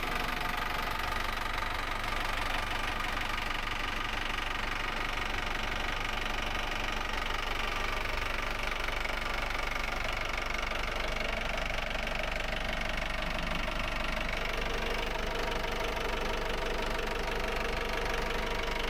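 Volvo Penta AD31 marine diesel running steadily just after starting, with a diesel knock, run to check its rebuilt raw water pump for leaks.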